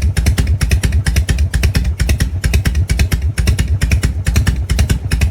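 Harley-Davidson V-twin motorcycle engine idling, a steady, even beat of about six pulses a second.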